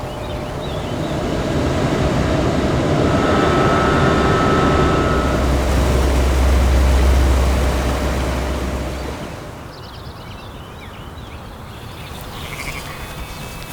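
A vehicle passing: its rumble builds, peaks and fades away. Then birds chirp faintly.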